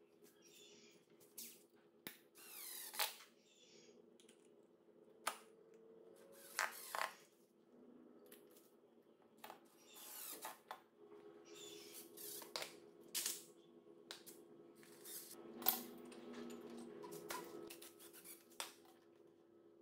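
Small cordless drill driving screws into a steel frame in several short bursts, with clinks of screws and metal parts being handled between them.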